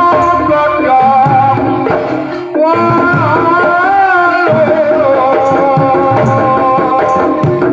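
Javanese barongan dance music: hand drums beat steadily under a held, wavering high melody line, with a brief drop in the music about two and a half seconds in.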